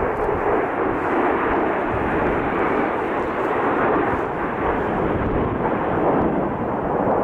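Formation of Dassault-Dornier Alpha Jets flying overhead: a steady, even rumble of their twin turbofan engines.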